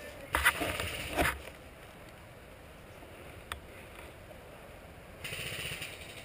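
Rustling and scuffing of movement in dry leaves and undergrowth, with two louder bursts in the first second and a half and a shorter hissing rustle near the end. A single sharp click about halfway through.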